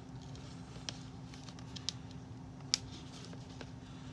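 A few sharp, isolated clicks, about one a second, with the strongest near the end, from handling a doll jacket and its packaging while freeing it from the card. A low, steady hum lies underneath.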